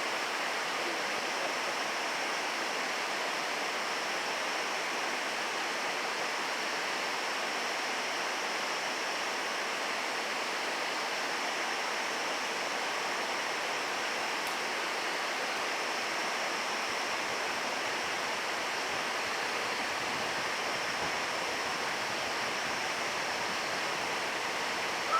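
Fast-flowing mountain stream rushing steadily, an even watery hiss with no change in level.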